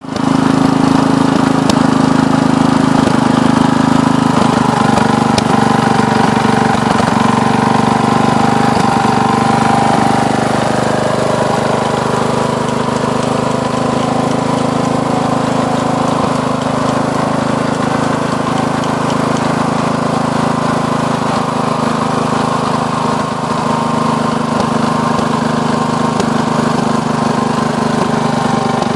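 Carver 168 single-cylinder four-stroke engine, freshly fitted with a new piston, running steadily with no load. It settles slightly lower about ten seconds in.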